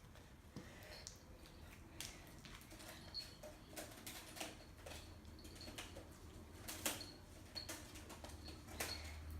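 Faint, scattered clicks and scratchy rustles of small objects being handled, with a sharper click about seven seconds in, over a faint steady low hum.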